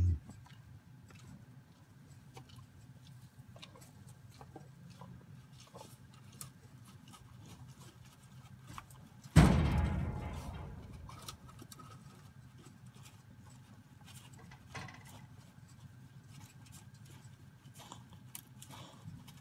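Calf feeding at a galvanised metal creep feeder, with scattered small clicks and crunches of barley. About nine seconds in comes one loud metal bang that rings and dies away over a couple of seconds, as the calf's head knocks the feeder.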